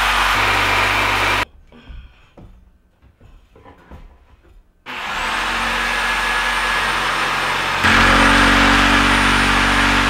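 Small electric palm sander running, held against the wooden form of a freshly poured concrete countertop to vibrate the wet concrete down and shake air bubbles out. It cuts off about a second and a half in, leaving a few faint knocks. It starts again with a rising whine about five seconds in and gets louder near the eight-second mark.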